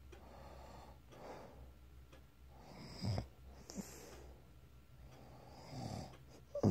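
Snoring: slow, noisy breaths in and out, with a short loud snort about three seconds in and a louder one at the very end.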